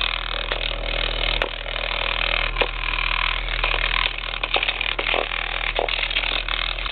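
40 Hz test tone played through a 12-inch VR3 car subwoofer: a steady deep hum with a buzzing, rattling noise over it and a few scattered clicks.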